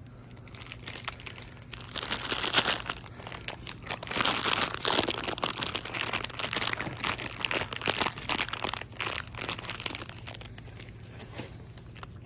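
Crinkling, scraping handling noise in irregular bursts, loudest from about two to ten seconds in, over a steady low hum.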